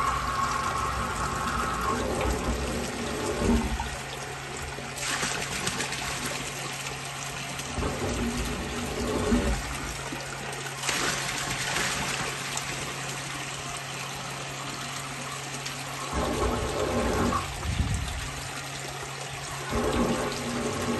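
Murky water and sludge gushing and splashing out of a drain pipe outlet as the blocked line is flushed with a high-pressure jetting hose. The flow surges louder several times over a steady low hum.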